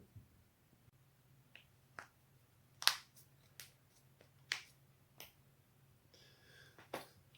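Joints cracking: a series of about eight sharp, separate pops at uneven spacing, the loudest about three seconds in. A short rustle comes just before the last pop.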